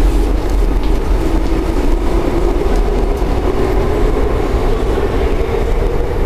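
Steady low rumble and hum inside a Korean metro subway car, with a faint steady drone strongest in the middle. The car is standing at a station platform with its doors open.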